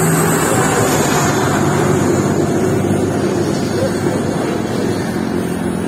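Steady drone of a moving vehicle's engine with rushing wind and travel noise, heard from on board.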